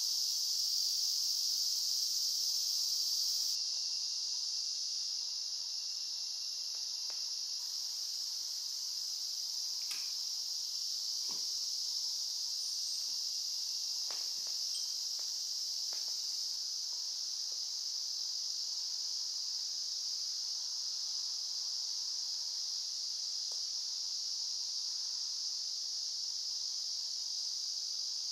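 A steady chorus of insects, a constant high-pitched shrill hiss without pauses. A few faint knocks come in the middle.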